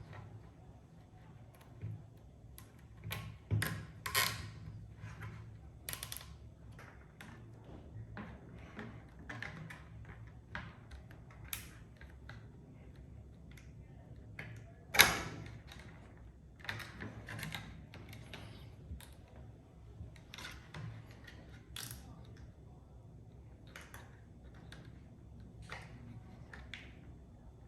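3D-printed plastic mudguard parts being handled and fitted together during assembly: irregular clicks and knocks, with one sharp, loud knock about halfway through.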